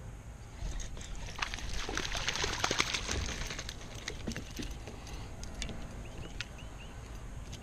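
A hooked bass splashing and thrashing at the water's surface beside a kayak, busiest about a second to three seconds in. After that come scattered smaller splashes and drips as the fish is brought up by hand.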